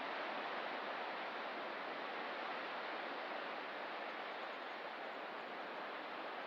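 Ocean surf on a rocky coast, a steady even wash with no separate wave breaks standing out.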